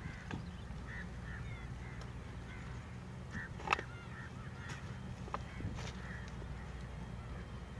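Birds giving short, scattered calls over a low steady rumble, with one sharp click about halfway through.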